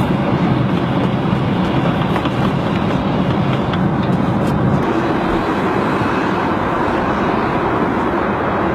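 Steady airliner cabin noise in flight: the even drone of engines and rushing air.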